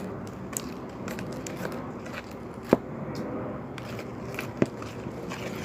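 Sticky homemade slime being stirred and pulled in a bowl, giving a run of small crackles and clicks, with two sharper clicks a little before halfway and near the end.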